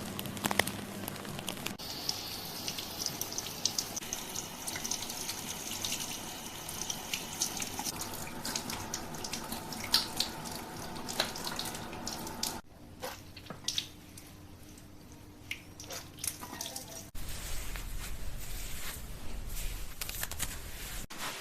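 Water running and splashing into a salon wash basin during a hair rinse, with drips and small clicks. The sound changes abruptly a few times: it drops quieter for a few seconds past the middle, then returns fuller near the end.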